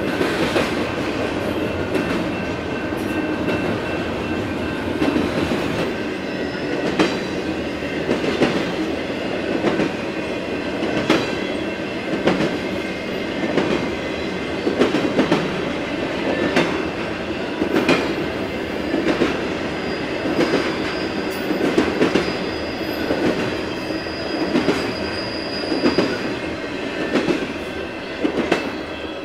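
Double-stack intermodal container train rolling past at speed, its wheels clicking over rail joints roughly once a second over a steady rumble, with a thin high wheel squeal.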